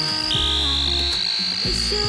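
Electronic background music: deep held bass notes under wobbly melody notes, with a high whistling tone that glides slowly upward, drops back about a third of a second in and starts rising again.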